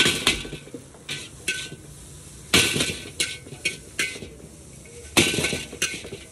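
Metal spatula and tongs clanging and scraping against a large wok as chowmein noodles are tossed over high heat. The wok rings briefly after each strike, in irregular clusters, loudest about two and a half and five seconds in, over a steady frying sizzle.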